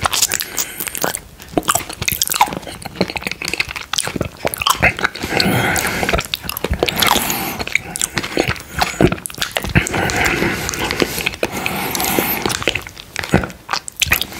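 Close-miked mouth sounds of eating spoonfuls of mango quark dessert with coconut flakes: chewing with a steady stream of small wet smacks and clicks.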